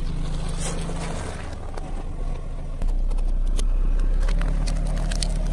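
A car engine runs at low speed close by and grows louder about halfway through. A few sharp cracks and crunches come near the end as the tyre crushes food and plastic trays.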